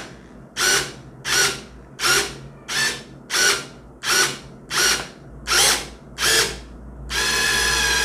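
Drill driving a drill-mounted pop rivet gun adaptor, run in about ten short bursts roughly 0.7 s apart, then running steadily with a whine from about seven seconds in, as the adaptor pulls the rivet's mandrel to set the rivet.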